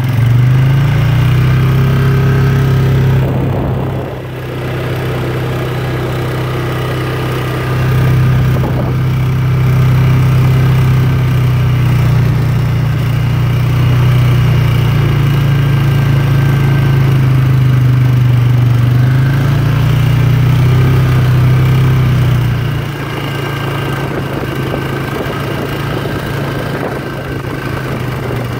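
Polaris ATV engine running under throttle while riding. It eases off briefly about four seconds in, then drops to a lower, quieter run for the last few seconds as the machine slows.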